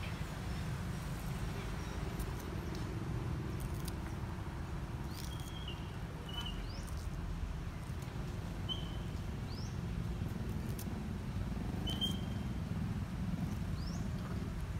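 Outdoor ambience: a steady low rumble, with short high chirps every second or two from about five seconds in.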